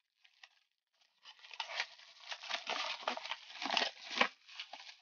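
Packaging being torn and crinkled open, a run of crackling, rustling rips that starts about a second in.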